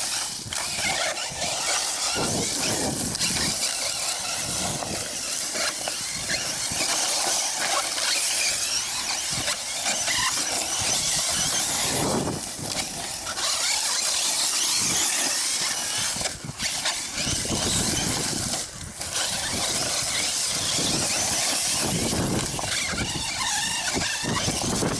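Electric 1/8-scale HobbyKing BSR Berserker RC truggy on a 3S LiPo driving over rough, rocky ground: high-pitched motor and drivetrain whine with tyre and gravel noise, easing off briefly twice in the second half.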